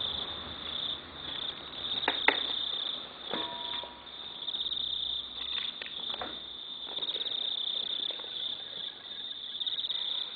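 Insects chirping steadily in a high continuous pulsing trill, with a couple of faint clicks about two seconds in.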